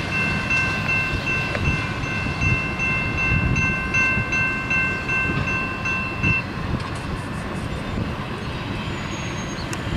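Last cars of a slow-moving intermodal freight train rolling past, its wheels rumbling and clacking over the rail joints. A steady high ringing tone runs with it and stops about six seconds in.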